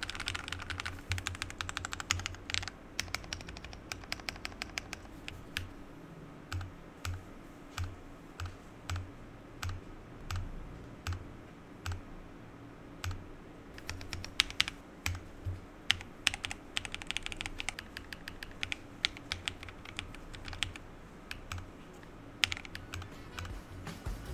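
Typing sound test on an Akko ACR Top 40, a 40% mechanical keyboard in a two-layer acrylic top-mount case with KTT Bear switches and MDA-profile PBT double-shot keycaps: fast flurries of key clacks near the start and end, and through the middle sparser, deeper thuds about every half second.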